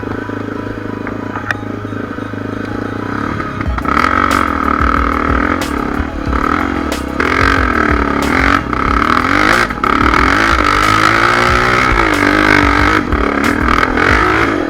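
Dirt bike engine running at a steady low note, then revving hard under load from about four seconds in, its pitch rising and falling. Scattered knocks and clatter run through it.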